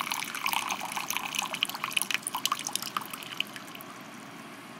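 Liquid poured in a thin stream into a small wooden cup, gurgling and splashing as it fills. It tapers off and stops about three and a half seconds in.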